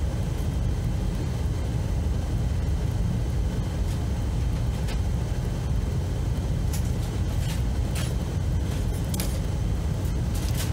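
A steady low rumble, with scattered light clicks and taps from small tools working on the key fob's battery contacts.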